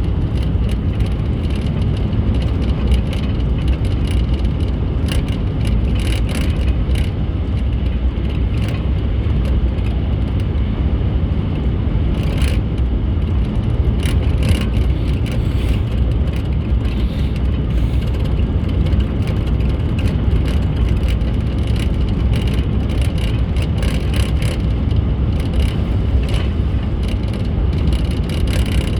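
Car driving along a road: a steady low rumble of road and engine noise with frequent small rattles.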